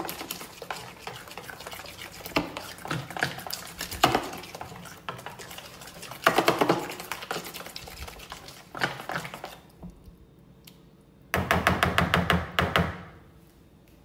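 Metal spoon stirring thick, wet flour batter in a plastic bowl: irregular scrapes, clinks and squelches in bunches, then a quick run of rapid strokes near the end before it stops.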